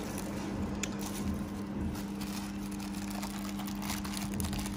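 Steady low electrical hum from the switched-on HS-LC2000 laser cleaning machine. Over it, thin paper rustles and crinkles faintly as it is handled over the laser head.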